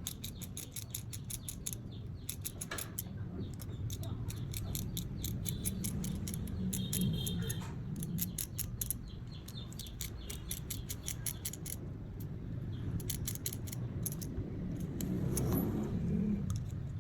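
Rapid light clicking in bursts, several clicks a second, from small hand tools working on a watch, over a steady low hum.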